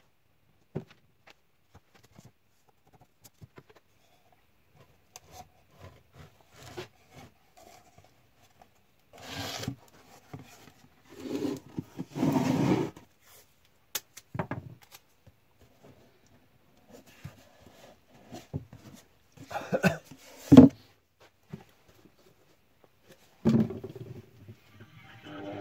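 Thin plywood panels being handled, folded up and taped into a box on a wooden workbench: scattered light wooden knocks and taps, with a few short, louder bursts of rubbing and tearing, like tape being pulled and pressed on.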